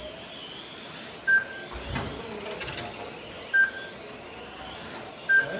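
Race timing system giving three short, identical beeps as cars cross the lap-counting line, over a faint steady whine and hiss of 1/12-scale GT12 electric RC cars lapping the track.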